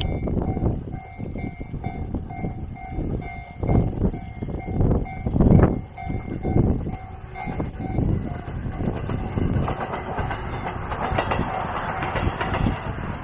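Level-crossing warning bell ringing, a quickly repeating electronic ding, until about eight seconds in, with wind gusting on the microphone. Then a diesel railcar comes up and passes close by, its engine and wheel noise swelling toward the end.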